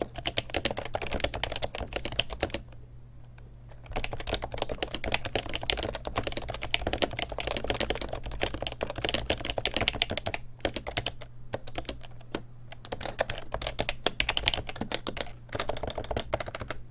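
Typing on an HHKB Professional 2 keyboard with stock, unlubed Topre switches and no silencing rings, with fast runs of keystrokes and short pauses, one of them about a second long near three seconds in. Some strokes on the side keys bring a rattle, because the keyboard flexes and rocks on the table.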